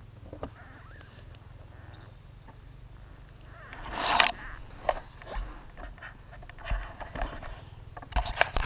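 Honda enduro dirt bike's engine idling with a steady low putter, under scraping and rustling of the helmet camera moving in grass. The loudest rustling comes about four seconds in and in a run of sharp knocks near the end.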